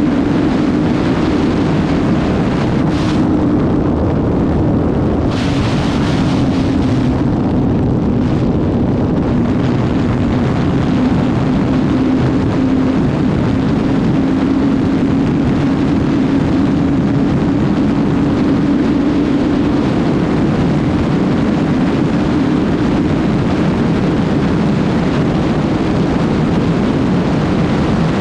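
Suzuki GSX-R 750 inline-four engine running at a steady pitch while riding, under heavy wind noise on the helmet microphone.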